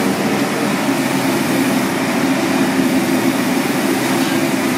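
Tap water running steadily into a stainless steel sink, over a loud, constant machine hum.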